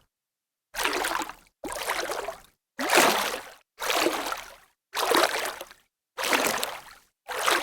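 Water splashing: seven separate splashes, each starting sharply and dying away within about a second, with dead silence between them.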